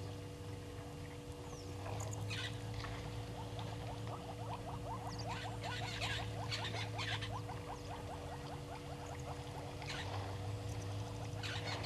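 Bush ambience: a fast, rattling run of short ticks for a few seconds from a small animal or bird, and a few brief high chirps, over a steady low hum.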